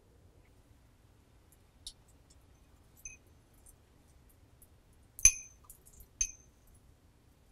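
Small ceramic bowl clinking as chopped spring onions are shaken and scraped out of it: a few light taps, then two sharp ringing clinks about five and six seconds in.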